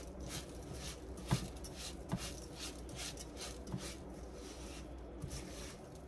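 Silicone spatula stirring raw rice and diced sausage in a nonstick saucepan: a rhythmic scraping and shuffling of grains, about three strokes a second, with a few sharper knocks of the spatula against the pot. The rice is being toasted dry in the sausage fat until it starts to brown.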